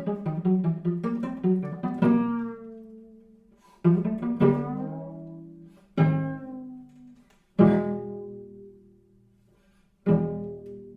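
Solo cello played pizzicato: a run of quick plucked notes, then a series of plucked chords about every two seconds, each left to ring and fade.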